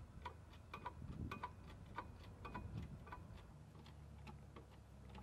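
Faint, light clicking, about three clicks a second and slightly uneven, from the hydraulic bottle jacks of boat lift stands being pumped by hand with long handles as they raise a boat.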